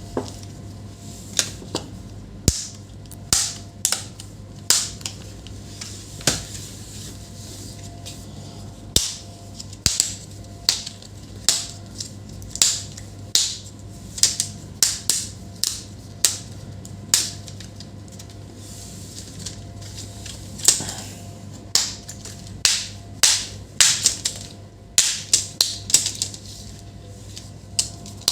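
Sharp plastic clicks and snaps, one or two a second at irregular intervals, as the Acer laptop's plastic case around the broken hinge is pried open and its clips pop loose, over a low steady hum.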